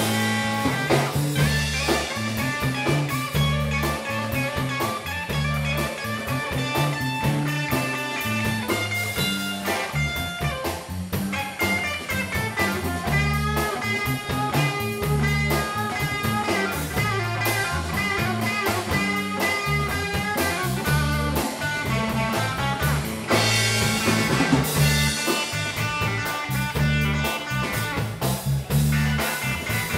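Live blues trio playing an instrumental: amplified electric guitar lead over electric bass and drum kit.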